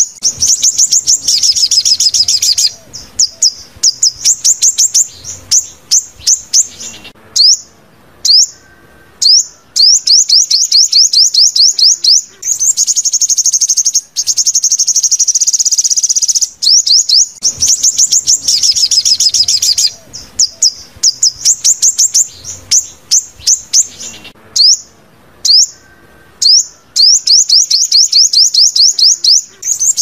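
Recorded sunbird song played as a lure for speaker-trapping: fast runs of high, sharp chirps and trills broken by short pauses. The same sequence starts over about halfway through, as a repeating loop.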